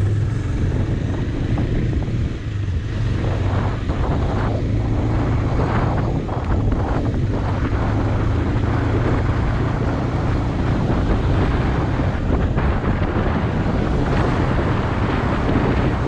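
Motorcycle engine running steadily while riding at road speed, with heavy wind noise on the microphone.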